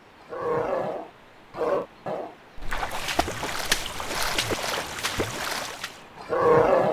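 Bear roars and growls: three short roars in the first two and a half seconds, a longer rough, noisy stretch through the middle, and another roar near the end.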